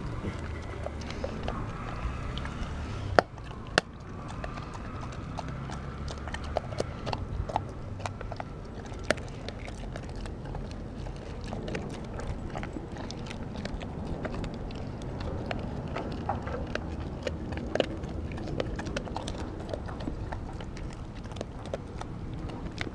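A Kelpie–German Shepherd mix dog chewing and crunching raw food up close, with many small clicks throughout and two sharp, loud clicks a little after three seconds in.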